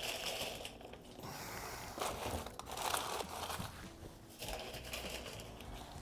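Tallow-soaked butcher paper wrapped around smoked briskets crinkling and rustling as the briskets are handled and pulled off the smoker racks, in several bursts.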